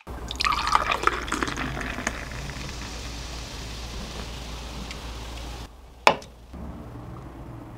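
Lager poured from a can into a glass: a splashy, gurgling pour at first, settling into a steady fizzing hiss as the glass fills with foam. The sound cuts off suddenly a little before six seconds in, and a single sharp click follows.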